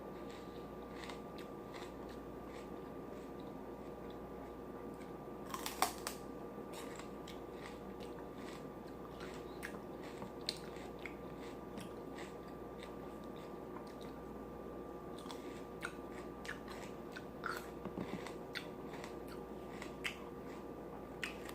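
A person chewing and crunching food close to the microphone: a run of small irregular crunches and mouth clicks, with one louder crunch about six seconds in. A faint steady hum runs underneath.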